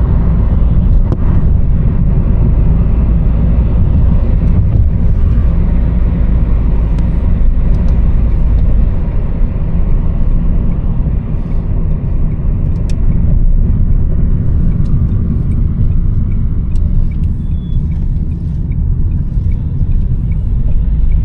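Car on the move, heard from inside the cabin: a steady rumble of engine and road noise.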